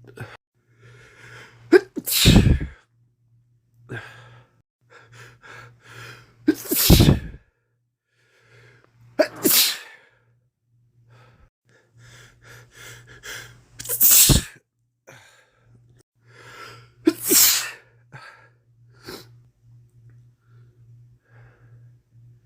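A man with a head cold sneezing about five times in a row. Each loud sneeze is preceded by short catching in-breaths and sniffs, and a smaller sneeze or snort follows near the end.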